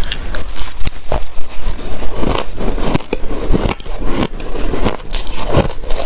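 Close-miked crunching of shaved ice being bitten and chewed, a quick, uneven run of crisp crunches.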